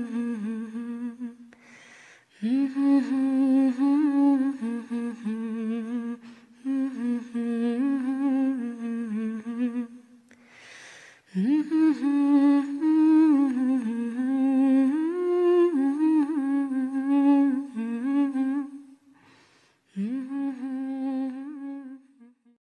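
A single voice humming a wordless melody in long, wavering phrases, with short breaths between them. It stops a little before the end.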